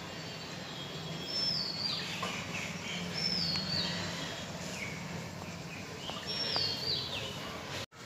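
A bird calling: three high whistled calls, each stepping down in pitch, over a steady low background hum.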